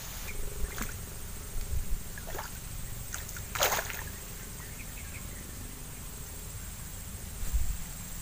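Outdoor ambience: a steady low rumble under a thin, steady high hum, broken by a few short noises, the largest about three and a half seconds in.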